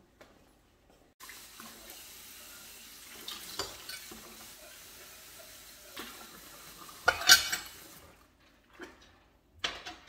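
Kitchen tap running into a sink while a glass bowl is washed by hand, with dishes clinking and a louder clatter of dishware about seven seconds in. The running water stops about eight seconds in, followed by a few light knocks.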